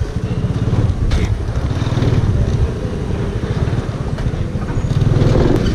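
Honda scooter's small single-cylinder engine running at low speed with a steady pulsing rumble, getting a little louder about five seconds in as the throttle opens.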